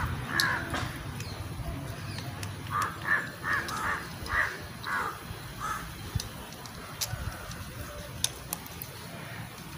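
A crow cawing in a run of short calls, one near the start and about seven between three and six seconds in. A few light clicks from a plastic selfie-stick tripod being handled and pulled out.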